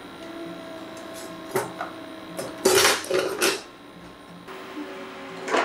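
A knife knocking and scraping on a plastic cutting board as diced raw chicken is worked, a few light taps followed by two louder scrapes about halfway through. A faint steady hum runs underneath.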